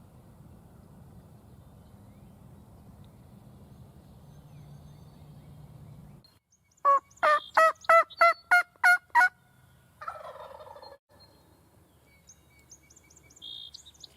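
A turkey yelping: a run of about eight loud, evenly spaced yelps, roughly three a second, after several seconds of low outdoor ambience, followed by a lower falling note. Small birds chirp faintly near the end.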